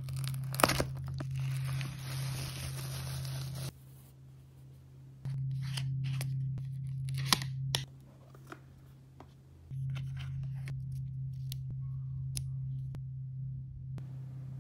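Scissors cutting through packing tape and cardboard on a parcel, with sharp snips just under a second in. Then come scattered light taps and clicks of boxes being handled, over a steady low hum that cuts in and out.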